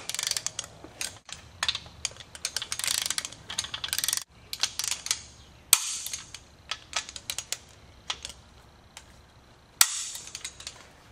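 Ratchet torque wrench being worked in short strokes on a Chevy 350 small-block's main bearing cap bolts, tightening them to 65 ft-lb: spurts of rapid ratcheting clicks, with two sharper, louder clicks about halfway through and near the end.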